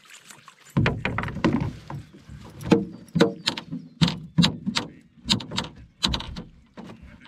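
A freshly landed brook trout flopping and thrashing in a landing net in a canoe, making an irregular string of sharp slaps and knocks, two or three a second.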